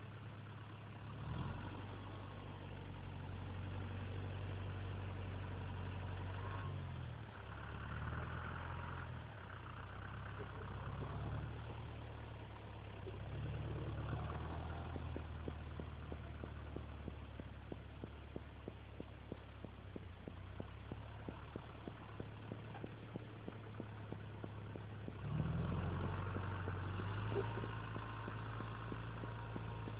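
Lamborghini Cross 70 tractor's diesel engine running as it works a front loader bucket in deep snow, its speed rising and falling with the load. A fast, regular ticking runs through the middle. The engine revs up near the end.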